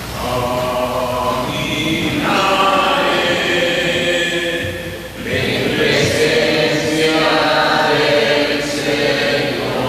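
Voices singing a slow hymn with long held notes, with a short break about five seconds in.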